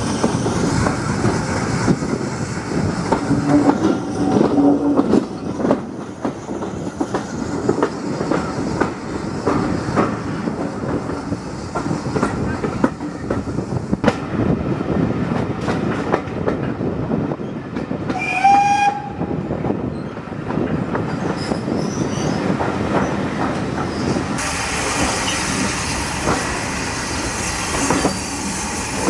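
Steam-hauled passenger train running, its carriage wheels clicking and clattering over rail joints and points. About two-thirds of the way through, the locomotive's whistle sounds once, briefly. Near the end a steady hiss takes over.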